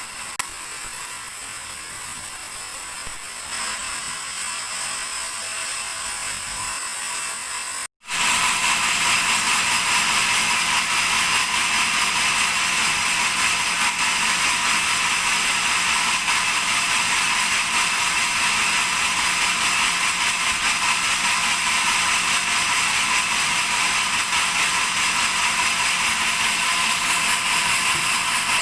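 Large sawmill bandsaw cutting through a dry teak log: a steady rasping hiss. It breaks off for an instant about eight seconds in, then carries on louder.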